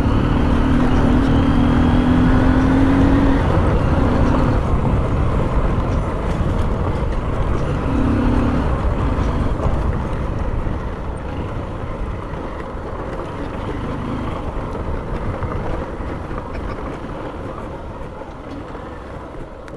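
Motorcycle riding along, the Honda CB Shine 125's single-cylinder engine running under heavy wind and road noise. A steady low tone sounds for the first three seconds, and the whole sound grows gradually quieter through the second half.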